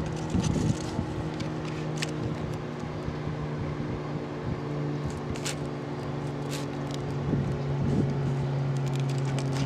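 A steady low machine hum made of several held tones, its lowest tone dropping slightly partway through, with a few short light clicks scattered over it.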